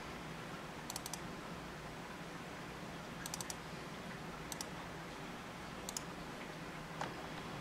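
Faint computer mouse clicks, in quick pairs and small clusters every second or so as folders are opened and a file is selected, over a low steady hum.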